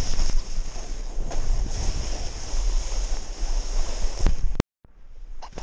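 Wind rushing over the microphone and a snowboard hissing through deep fresh powder during a ride. About four and a half seconds in, the sound cuts off abruptly with a click, then comes back quieter.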